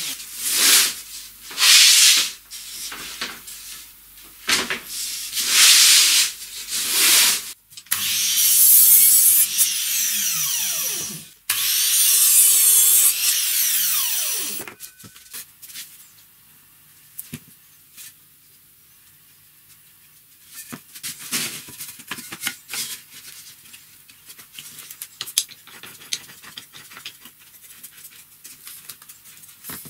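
About five rubbing strokes over a plywood sheet. Then a Metabo miter saw makes two short cuts through a wooden strip, its blade winding down in falling pitch after each. Faint clicks and knocks follow as a corner clamp is fitted and screwed tight on a mitred frame corner.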